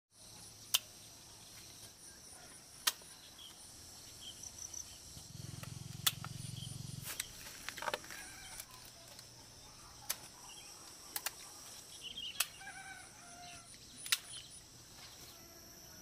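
Pruning shears snipping through citron stems: sharp single clicks every one to three seconds. Behind them, a steady high insect drone and a chicken clucking now and then.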